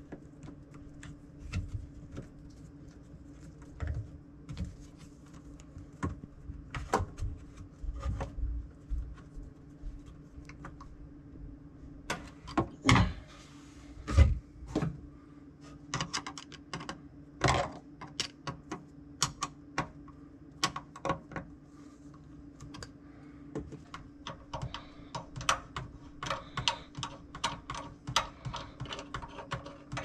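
Irregular small clicks, taps and knocks of a screwdriver and plastic drain fittings being handled while the garbage disposal's drain connections are tightened, with a couple of louder knocks about halfway through. A faint low steady hum runs behind.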